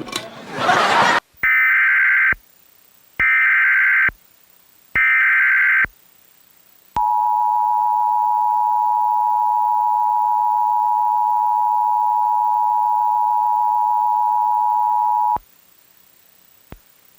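Emergency Alert System broadcast tones: three short bursts of the SAME data header, each about a second long, then the steady two-tone EAS attention signal for about eight seconds, cutting off sharply. The tones announce a National Weather Service severe thunderstorm warning. About a second of TV programme audio is heard before the tones cut in.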